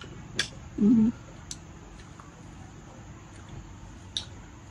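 Chopsticks clicking sharply against a small ceramic bowl a few times while eating, with a short, low hummed vocal sound about a second in.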